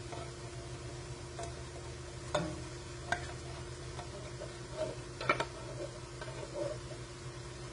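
Food sizzling quietly in a stainless steel pot, broken by a few short sharp clicks and soft plops as canned diced tomatoes slide out of a tilted can into it, the loudest about two and a half and five seconds in. A steady low hum runs underneath.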